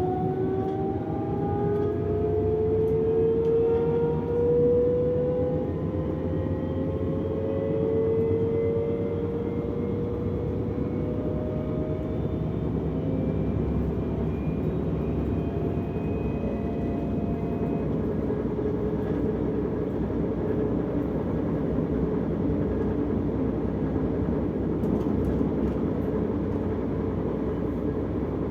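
Inside a DB class 425 electric multiple unit under way: the electric traction drive whines in a tone that rises slowly in pitch for about the first fifteen seconds as the train gathers speed, then fades, over the steady rumble of the wheels on the track.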